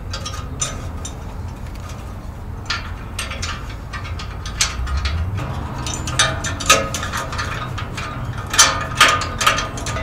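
Metal clicking and clinking of a steel U-bolt exhaust clamp being fitted by hand around an exhaust pipe, its nuts turned on finger-tight. The clicks come scattered at first, then louder and closer together in the second half.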